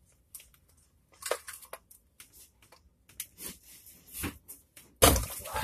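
Plastic battery case and lithium-ion cell pack being worked loose by hand: scattered clicks and scrapes, then a loud knock and scrape about five seconds in as the pack comes free.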